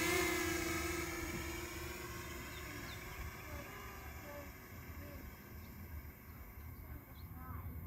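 DJI Mini 2 quadcopter's propellers humming with a steady pitch as it climbs and flies away, the hum fading over the first few seconds. A few faint bird chirps follow.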